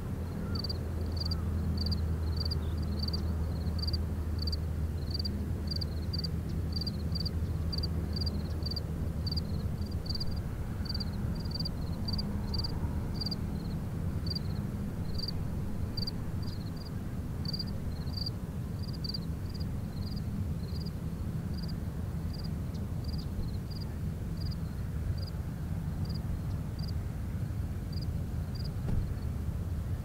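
Outdoor ambience: a steady low drone with a constant hum in it, overlaid by a short, high chirp that repeats about one to two times a second.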